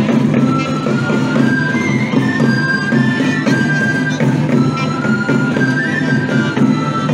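Catalan traditional street-band music on woodwinds: a high melody over sustained low notes, played for the dancing giants.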